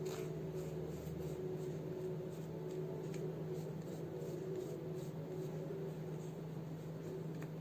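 Paintbrush bristles rubbing over the raised relief of a cast frame in short repeated dry-brush strokes, a soft scratchy sound, with very little metallic paint on the brush. A steady low hum runs underneath.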